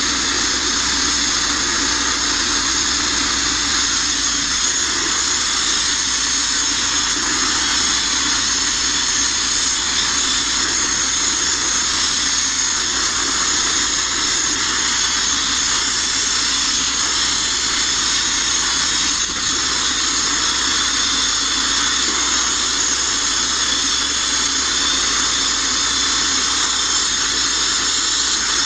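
Abrasive media-blasting nozzle running continuously: a loud, steady hiss of compressed air and grit striking the bare steel inside a Mk1 Ford Transit van body, stripping it back.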